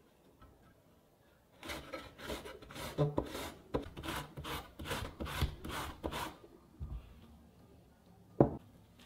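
Zucchini being grated on a metal box grater: quick rasping strokes, about three a second, for several seconds. The grating stops with a soft thud, and then there is one sharp knock near the end.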